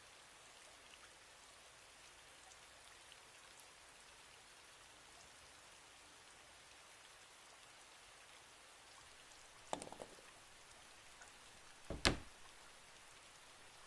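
Steady rain pattering, quiet and even. About ten seconds in comes a brief clatter of small knocks. About two seconds later there is one loud, heavy thud from a wooden door.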